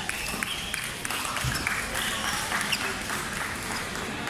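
Scattered clapping and a few sharp taps over background voices, echoing in a large sports hall.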